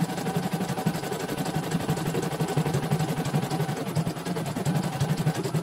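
CNY portable computerized embroidery machine stitching a design, its needle running in a fast, steady rhythm of strokes as the hoop carriage moves the fabric.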